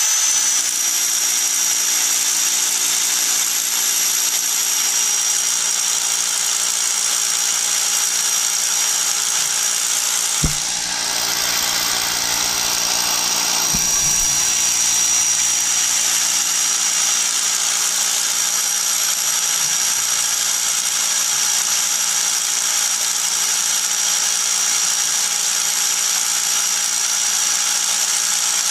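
Corded power drill with a long 12 mm masonry bit running steadily as it bores into rock, with a constant high whine. A brief knock about ten seconds in.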